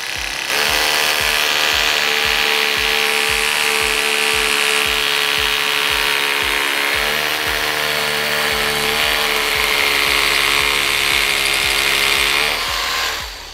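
INGCO 20V cordless SDS-plus rotary hammer drilling a hole into a concrete wall: a loud, steady motor whine with a grinding rasp. It starts about half a second in, dips slightly in pitch partway through as the bit bears into the wall, and winds down near the end.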